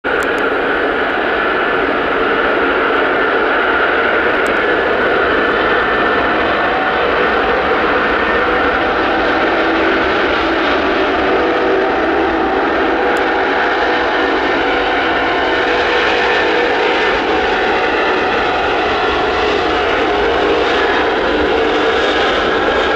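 The four D-18T turbofan engines of an Antonov An-124-100 Ruslan run at high power as it starts its takeoff. The sound is a loud, steady engine roar with a droning whine over it.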